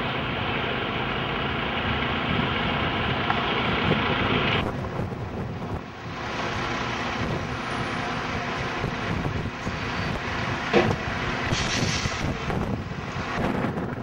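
Wind buffeting an outdoor microphone over a steady rumbling noise. About five seconds in it changes abruptly to a duller, gustier noise with a couple of brief louder bumps.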